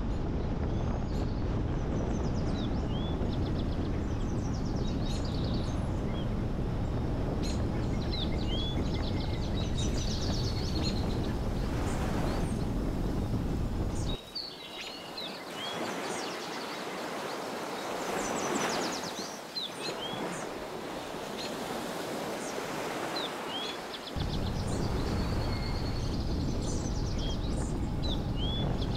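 Birds chirping and calling, many short high chirps, over a steady low rumble. The rumble cuts out abruptly for about ten seconds in the middle, leaving the birdsong over a soft hiss, then comes back.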